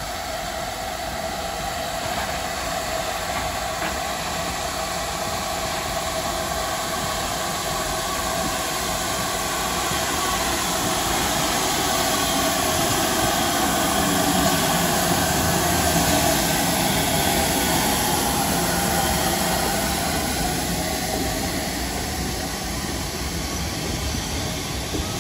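GWR 2800 class 2-8-0 steam locomotive hauling a goods train into a station, with a steady rumble and hiss. It gets louder as the engine comes alongside, loudest a little past halfway, then eases off as the wagons and brake vans roll by.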